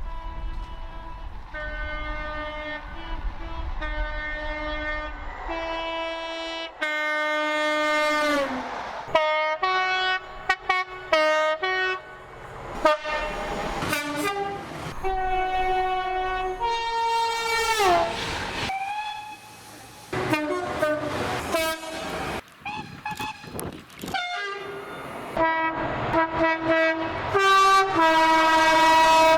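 Train horns sounding in a run of short clips: repeated blasts alternating between a higher and a lower note, one after another. A couple of blasts slide down in pitch as they fade, around 8 and 18 seconds in, and the sound changes abruptly from one train to the next.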